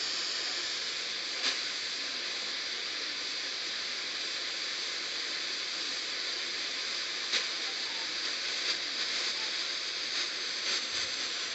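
Radio static: a steady hiss from a radio receiver on a weak, noisy signal, with a few faint crackles scattered through it.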